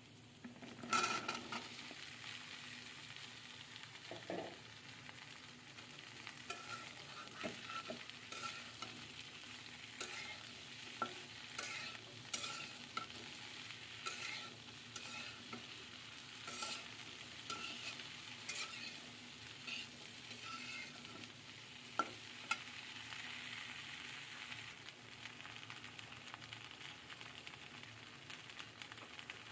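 Food frying and sizzling in oil in a pan, stirred with a spatula that scrapes and clicks against the pan again and again.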